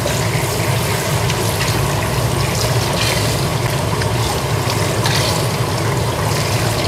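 Kitchen tap running steadily onto a squid and into a bowl of water in a stainless steel sink, with small splashes as hands rinse and pull out the squid's insides under the stream.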